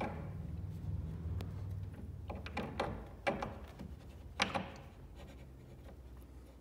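Handling noises of bed-assembly parts: a few sharp clicks, knocks and scrapes as a black plastic trunnion bushing is pressed into a bed side panel and the panel is shifted against the metal mechanism plate to line up the holes. The loudest knock comes about four and a half seconds in.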